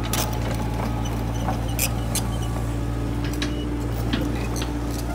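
An excavator's diesel engine running steadily, with scattered sharp clicks and cracks over the drone.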